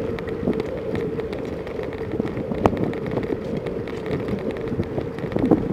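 Bicycle riding along a road, heard from a camera on the bike: steady tyre and wind noise, with frequent small rattles and knocks and one sharper knock about halfway through.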